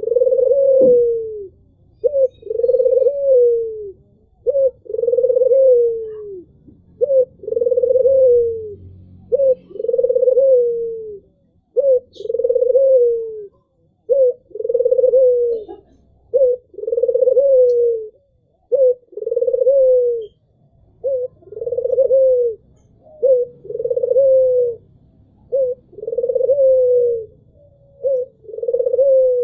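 Albino puter (white domestic ringneck dove) cooing steadily: a short note followed by a longer coo that falls in pitch, repeated about every two seconds.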